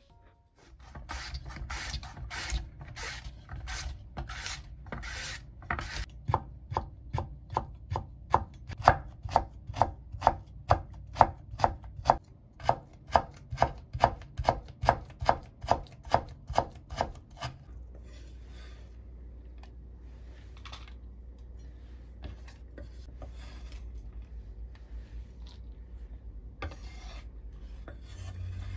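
Kitchen knife chopping a carrot into thin julienne strips on a wooden cutting board, a steady rhythm of about two to three strokes a second that stops a little over halfway through. Softer scraping and handling sounds follow.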